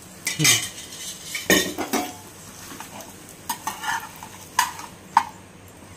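A perforated metal spatula scraping and knocking against a metal frying pan several times as it lifts and turns a paratha, over a faint sizzle of the paratha frying in oil.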